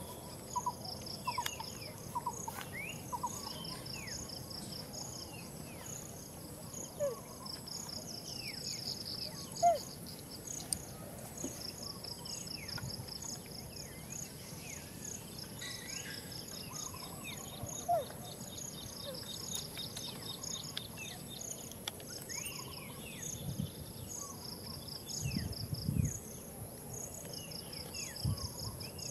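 Outdoor insect chorus: insects chirping in repeated pulsing trains over a steady high-pitched whine, with scattered short bird chirps. A sharp click comes about ten seconds in, and there are a few soft low bumps near the end.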